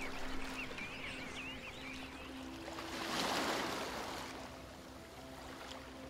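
Surf washing on a shore, one wave swelling to a peak about three seconds in, over soft held music notes. High chirping calls sound during the first two seconds.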